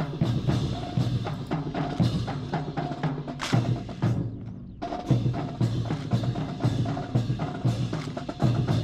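Percussion-heavy music with sharp wooden clacks of M1 Garand rifles being spun, slapped and caught in unison by a drill team. After a loud clack about three and a half seconds in, the sound falls away briefly, then picks up again about five seconds in.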